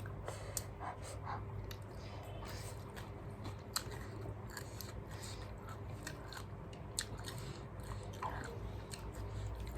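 Someone chewing cabbage with mouth noises and irregular crisp crunches.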